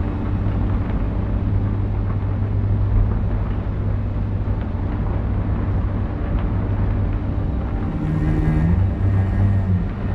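A steady low rumbling drone with a deep hum. Near the end, a few held low notes shift in pitch.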